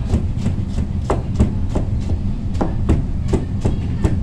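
Kitchen knife slicing squash into thin strips on a cutting board, the blade knocking on the board about three times a second with a short pause midway. A steady low hum runs underneath.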